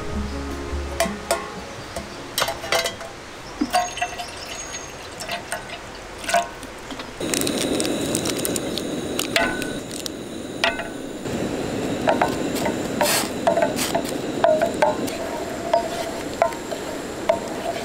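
Cookware and utensils clinking, with liquid being poured for a few seconds about seven seconds in and again a little later.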